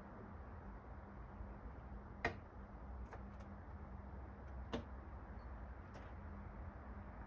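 Five sharp taps at uneven intervals, the loudest about two seconds in, over a faint low steady hum: a Eurasian collared dove pecking seed on a windowsill.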